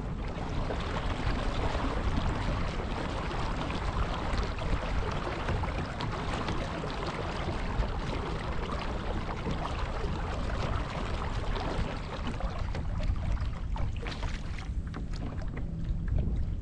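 Small waves lapping against a kayak hull, with wind buffeting the microphone, and a few light clicks near the end.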